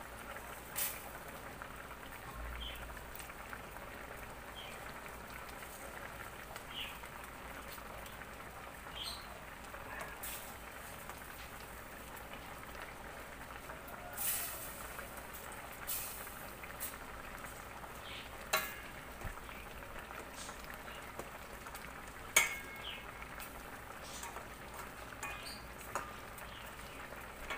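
Coconut milk simmering in a stainless steel pot of fish, a steady bubbling hiss, broken now and then by sharp clinks of a metal spoon against the pot as the cook spoons the sauce over the fish.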